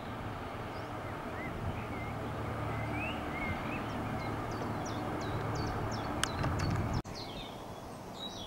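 Diesel-hauled train of loaded ballast wagons running away into the distance: a steady low rumble, with birds chirping over it. The rumble cuts off abruptly about seven seconds in, leaving birdsong.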